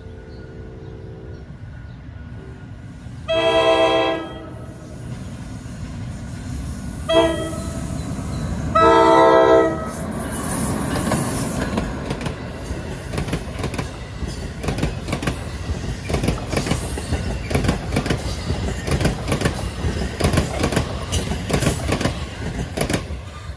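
NJ Transit ALP-46A electric locomotive sounding its horn for a grade crossing: the tail of one blast, then a long, a short and a long blast, the last ending about ten seconds in. The locomotive and its double-deck coaches then pass close by, wheels clattering over the rail joints in a quick, even run of clicks.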